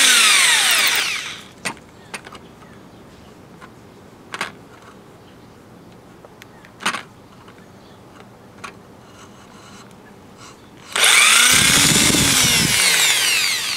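Electric drill running at cement board, winding down about a second in. A few short knocks follow. The drill spins up again near the end, its motor pitch rising and then falling.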